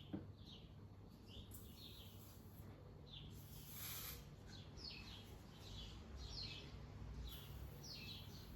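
Small bird chirping in the background: short, faint, falling notes repeated irregularly about once or twice a second. A brief hiss sounds a little before four seconds in.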